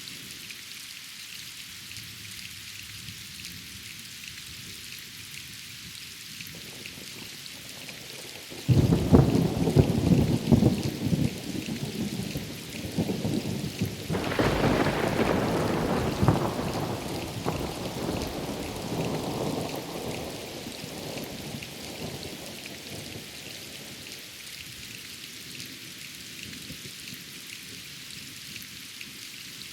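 Steady rain falling, with a sudden thunderclap about a third of the way in that crackles for a few seconds. A second peal follows, then a rumble that fades away over about ten seconds, leaving the rain.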